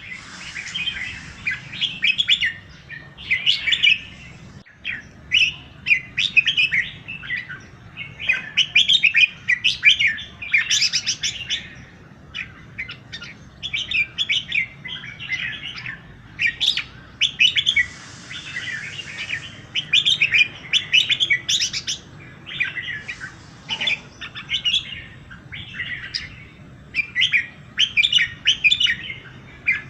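Several birds chirping and singing in a steady morning chorus, short overlapping chirps and trills with brief lulls between bursts.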